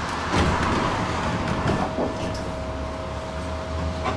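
Tram running: a steady low hum with a thin steady whine that sets in about a second and a half in, and a few short knocks from the car.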